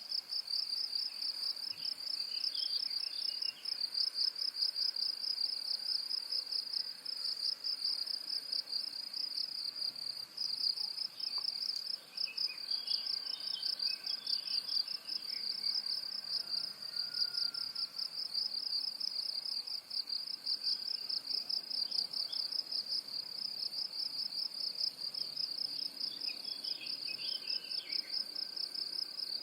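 A steady, high insect trill, pulsing fast and without a break, with faint bird chirps a few times over it.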